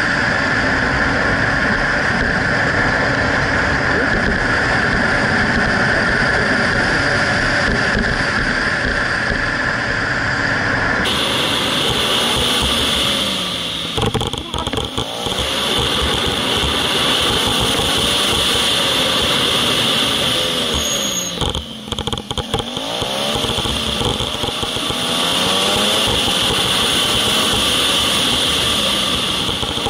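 Suzuki SV650's V-twin engine running under way, heard through a bike-mounted camera with heavy wind noise over it. The engine note rises and falls through the bends and drops off briefly twice, near the middle and about two-thirds through. The sound changes abruptly about a third of the way in, where the footage is cut to another stretch of road.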